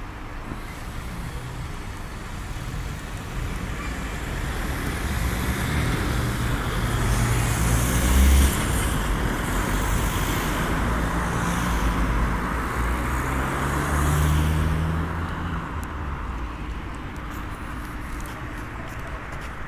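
Road traffic: large motor vehicles passing, their engine note rising and falling and the tyre noise swelling, loudest about eight and fourteen seconds in.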